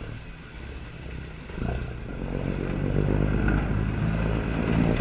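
Boat engines running with a steady low drone, growing louder about a second and a half in as the throttle comes up.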